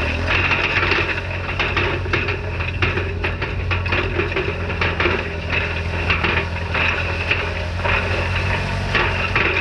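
Tractor engine running steadily while pulling a hay rake, with frequent irregular clicks and knocks from the rake. The popping comes from something wrong in a rake hub.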